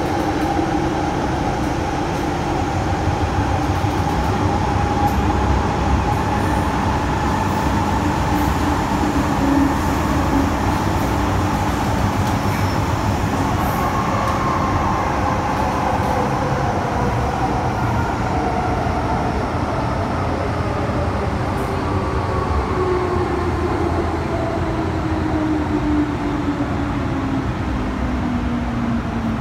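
Inside a carriage of an MTR Metro-Cammell electric train running through a tunnel: a steady rumble of wheels on rail with the whine of the traction motors over it. Over the last several seconds the whine falls steadily in pitch as the train slows for the station.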